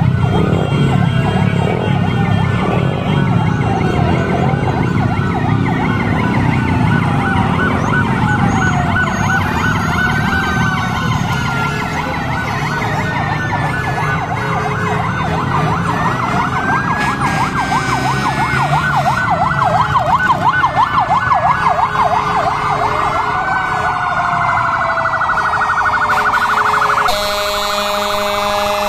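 Several emergency-vehicle sirens wailing together, their pitches rising and falling out of step, with a fast yelp in the middle. Near the end they give way to a steady horn blast.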